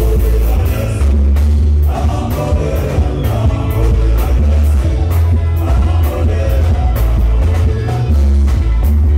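Loud upbeat dance music with singing over heavy bass and a steady drum beat.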